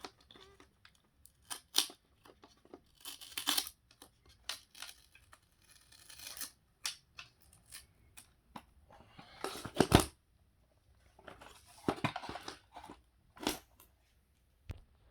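A glued paper-backed LED light strip being peeled off plastic by hand: irregular tearing and rasping with sharp clicks of handled plastic parts, the loudest rip about ten seconds in.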